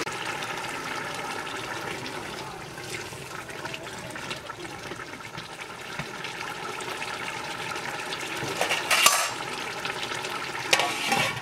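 Curry simmering and bubbling in an aluminium pot over a wood fire. Near the end, two sharp metallic clanks as the aluminium lid is handled.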